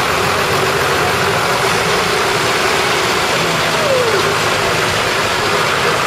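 Diesel farm tractor engines running at low speed as tractors drive slowly past close by, a Fiatagri F115 nearest. A steady, even engine rumble.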